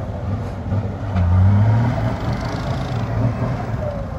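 Heavy diesel engines of an excavator and a dump truck running in a steady low drone. The engines rev up about a second in, then ease back.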